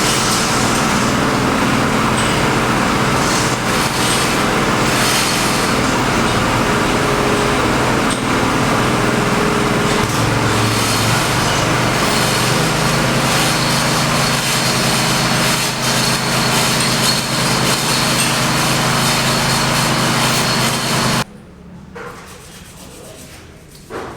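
A loud machine with a motor running steadily, then cutting off abruptly near the end and leaving a quieter background with a couple of short knocks.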